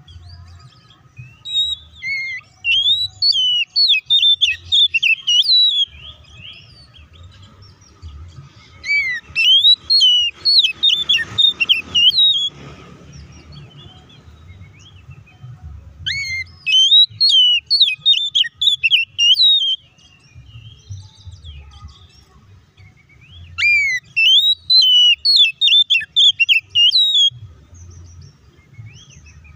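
Oriental magpie-robin in full, combative song: four loud phrases of rapid, varied whistles and chirps, each about four seconds long, with short pauses between.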